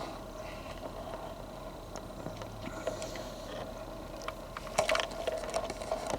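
Footsteps on the forest floor, leaves and twigs crackling underfoot, with a denser cluster of crackles about five seconds in over a faint steady hum.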